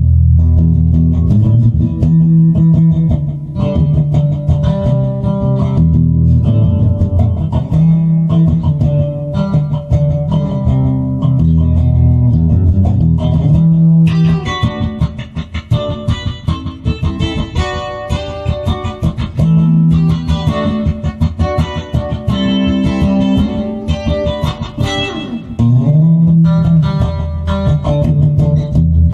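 Instrumental guitar music over a bass line: steady low bass notes under fast plucked guitar notes, the playing getting busier about halfway through.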